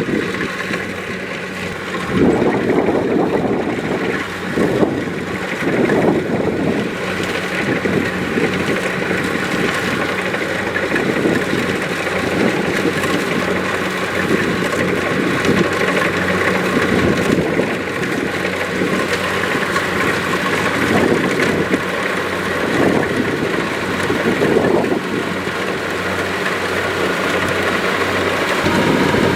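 Kubota DC-70 Plus combine harvester's diesel engine and threshing machinery running steadily while harvesting rice. The sound swells and dips a few times in the first several seconds, then holds steady.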